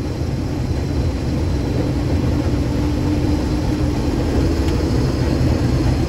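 Combine harvester running steadily: a constant low engine and machinery drone.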